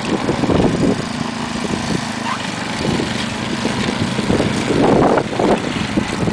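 Gas snowblower engine running steadily, with a louder rush of noise swelling about five seconds in.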